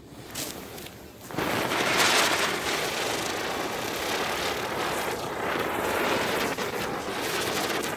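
Ravindra Chank-brand Ground Chakkar Special ground spinner firework spitting briefly as its fuse catches, then about a second and a half in bursting into a loud, steady hiss of spinning sparks that keeps going.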